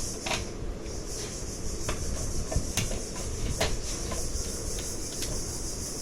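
Scattered light clicks and knocks, like small parts and tools being handled, over a steady high hiss and low rumble.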